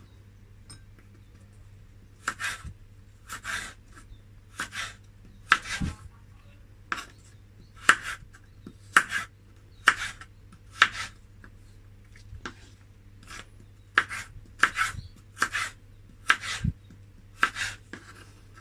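Knife chopping vegetables by hand, about fifteen separate cuts at roughly one a second, unevenly spaced.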